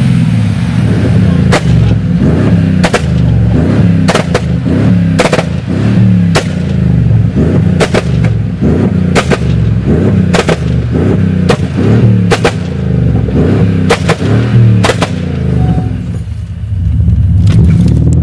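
A tuned Mercedes-Benz E500 (W212) twin-turbo V8 is revved again and again. Each rev is followed by a sharp exhaust pop or bang, about one a second, for a dozen or more bangs. The engine eases off briefly near the end before picking up again.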